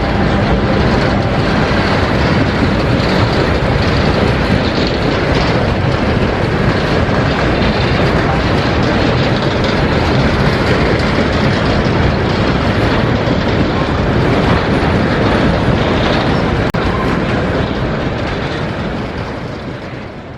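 Train passing close by: steady rumble and clatter of wheels on the rails, fading over the last few seconds.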